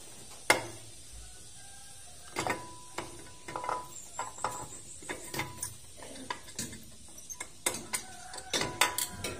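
Hand tools and metal parts clicking and clinking as a cover is unbolted and lifted off a Honda TMX 125 Alpha engine: a sharp knock about half a second in, then a run of irregular clicks and light metallic taps, some ringing briefly.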